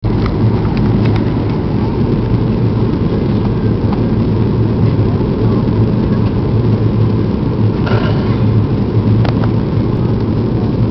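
Steady, loud cabin noise inside a Boeing 737-800 in flight on approach: the dense rumble and hum of the engines and rushing air, with a few faint brief clicks and rattles.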